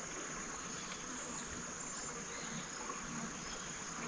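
Steady high-pitched insect drone over an even hiss, with no breaks or single knocks.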